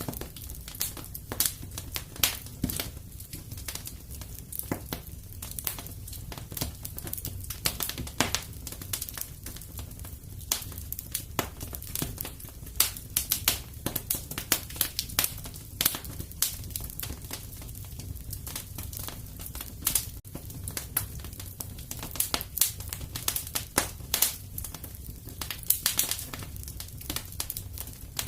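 Wood fire burning in a fireplace: a steady low rumble of the flames with many irregular sharp crackles and pops.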